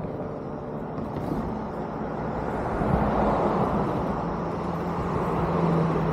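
Road traffic: a vehicle's engine and tyres humming as it drives along the road, with an engine hum and a rise in level about three seconds in and again near the end.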